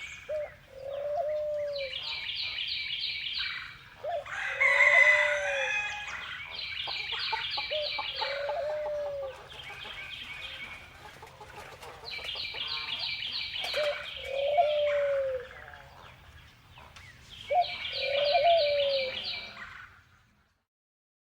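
Farmyard ambience: a rooster crowing several times, loudest about four seconds in, among repeated lower bird calls and rapid high chirping trills. The recording cuts off about a second before the end.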